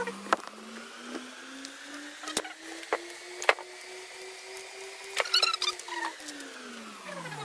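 Sandpaper being fitted to an idle electric palm sander: paper crinkling and sharp clicks from the pad clamps, with a cluster of rattly clicks a little after the middle. A faint hum slowly rises and then falls in pitch.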